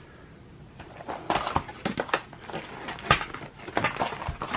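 Plastic shrink-wrap crinkling and rustling in quick, irregular crackles as a trading-card hobby box is unwrapped, starting about a second in.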